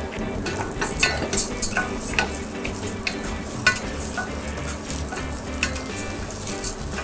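Arborio rice toasting in hot olive oil with shallot and garlic in a stainless steel saucepan, sizzling, while a wooden spatula stirs it in irregular strokes that scrape and click against the pan.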